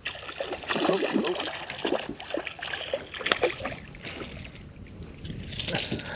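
A fish strikes a topwater lure with a sudden splash, then keeps splashing and thrashing at the surface in irregular bursts as it is reeled toward the boat. The splashing eases off about four seconds in and picks up again near the end.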